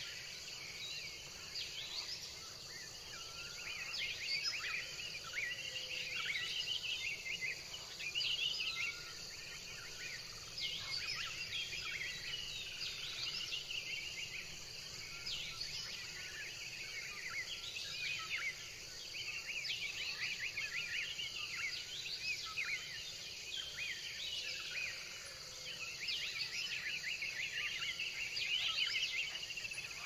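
A chorus of birds chirping and twittering in many short, high calls over a steady high-pitched insect drone.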